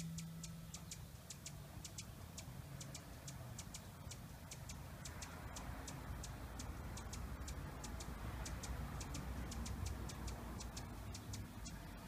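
Hummingbird chipping: a steady series of sharp, high-pitched ticks, about three a second, over a faint low rumble.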